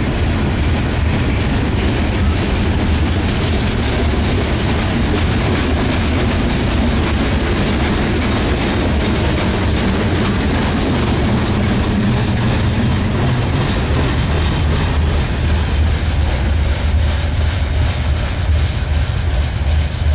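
Freight cars of a Norfolk Southern train rolling past: steel wheels clicking over the rail joints over a steady low rumble.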